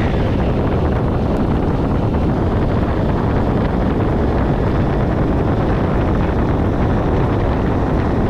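Steady wind noise rushing and buffeting over the microphone of a camera on a moving motorbike, with road and engine noise mixed in underneath.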